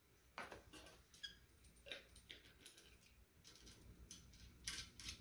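Faint, scattered small clicks and scratches of hands working a balsa spar into a model wing frame while gluing it, heard over near silence.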